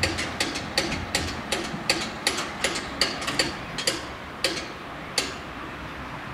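Electric warning bells of an Italian FS 88 level crossing ringing with rapid single strikes, about three a second, that slow and stop about five seconds in, as the crossing's warning ends after the tram has passed.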